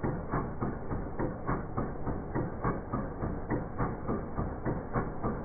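VW 1.9 TDI AFN four-cylinder turbodiesel running with a steady, rhythmic clatter of regular knocks; the engine has a vibration problem.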